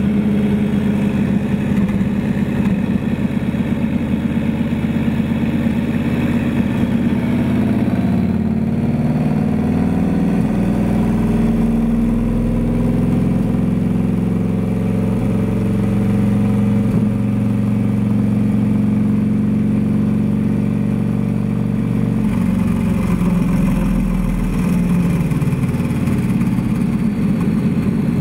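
Turbocharged Harley-Davidson VRSCSE2 Screamin' Eagle V-Rod's 1250 cc liquid-cooled V-twin running on a chassis dyno, driving the roller through the rear wheel. The engine speed holds steady for long stretches and shifts in pitch about ten seconds in and again a little after twenty seconds.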